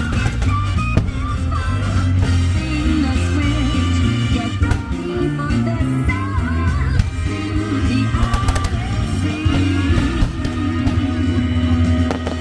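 Loud pop-rock song with guitar, drums and a steady bass line, played for a fireworks show set to music, with a few sharp cracks over it.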